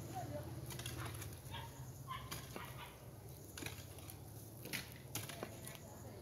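A long-handled hoe chopping into dry, hard-packed soil: irregular dull strikes about a second apart, over a low steady hum.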